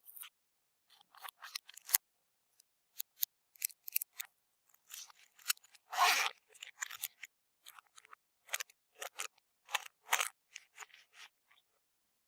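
Crunchy bead slime being pressed and worked by hand, giving irregular short crisp crackles and pops, with one longer, louder crackle about halfway through.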